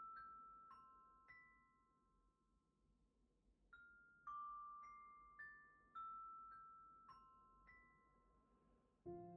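Sanukite stone bars struck one note at a time, each giving a clear, bell-like ringing tone that fades slowly. Three notes end one pass of the phrase and ring out; about four seconds in, the eight-note phrase (F, D, high C, A, E, G, low C, B) is played again at an even pace, and soft music comes in right at the end.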